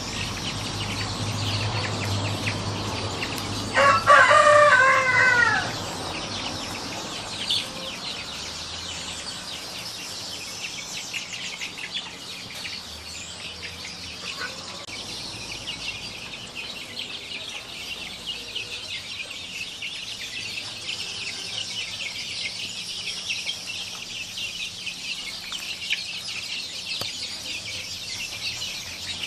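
Free-range chickens, with a rooster crowing once about four seconds in, a loud call lasting about two seconds. A steady high chirring runs underneath.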